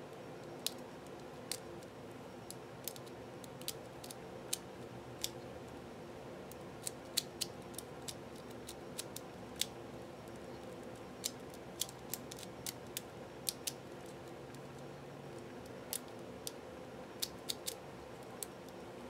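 Maru Nano 15 mm 3x3 puzzle cube being turned quickly during a speedsolve: irregular sharp plastic clicks, some in quick runs, over a faint steady hum.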